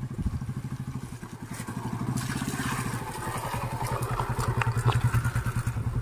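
Water running down a small rocky hill stream. Underneath runs a steady, fast, low throb, with a few faint ticks near the end.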